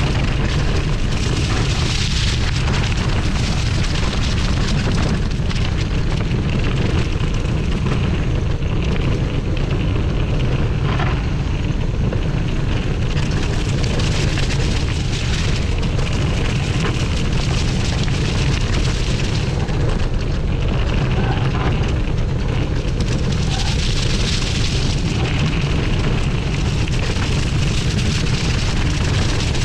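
Steady wind rumble on a GoPro Hero 8's microphone during a ride on a Kona Hei Hei cross-country mountain bike, with the tyres rolling over a dirt track covered in dry fallen leaves.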